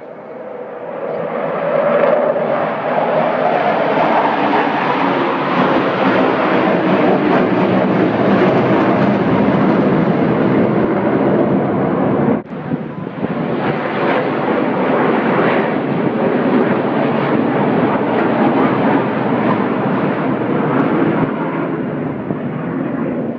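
Blue Angels F/A-18 Hornet jets flying past low: loud jet engine noise that swells over the first two seconds and then holds, with one brief sharp break about halfway through.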